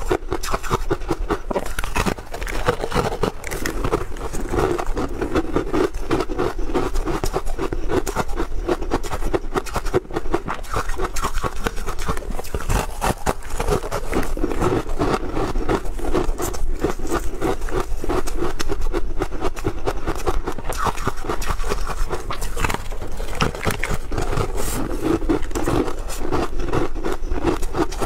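Close-miked crunching and chewing of a crumbly tartary-buckwheat snowflake crisp: a dense, continuous run of small crackles and crunches with short pauses.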